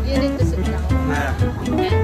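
Background music with guitar over a steady bass line.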